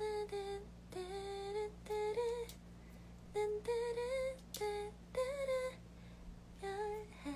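A woman humming a tune without words, in short phrases of held notes with small slides in pitch.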